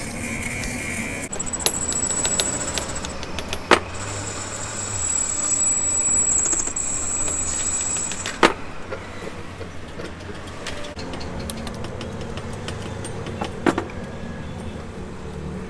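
Light metallic clinking and tapping over a steady machine hum, with three sharp knocks about five seconds apart and a thin high whine that comes and goes in the first half.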